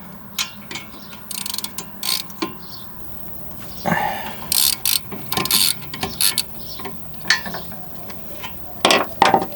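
Socket ratchet with an angle-adjustment attachment clicking in short spurts as it works the 15 mm brake caliper bolts loose.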